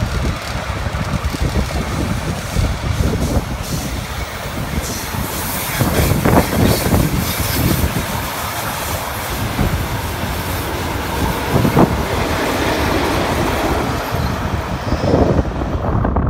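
Trains rolling past close by on the Gotthard line: steel wheels running on the rails with occasional clacks, and wind buffeting the microphone.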